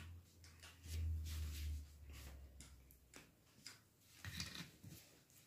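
Faint scattered clicks and light taps of tealight candles in metal cups being handled and lit, with a low rumble about a second in.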